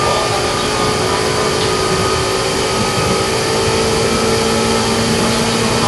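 Meitetsu 6000 series resistor-controlled electric multiple unit heard from inside the car, its traction motors and gears whining steadily in several tones over the rumble of the wheels on the rails while running at speed. A lower tone joins about halfway through.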